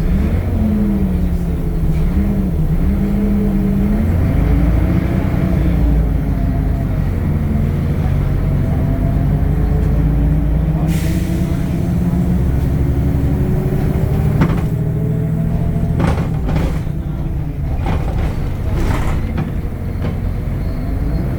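Temsa Avenue LF 12 city bus's DAF Euro 5 diesel engine and ZF gearbox running under way, the engine note shifting up and down with a long slow climb as the bus gathers speed. A brief hiss of air comes about halfway through, and several sharp knocks or rattles come near the end.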